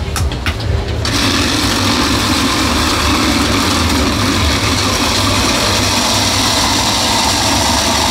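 A small motor running steadily and loudly, switched on abruptly about a second in.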